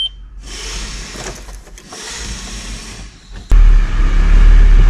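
VW T4 van's engine starting about three and a half seconds in and then running steadily, heard from inside the cab; before that only faint handling noise.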